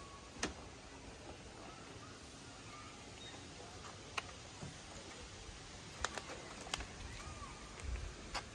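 Quiet outdoor ambience with a few sharp clicks and soft low thumps from a person walking off a wooden deck onto grass while carrying the phone, plus a few faint short chirps.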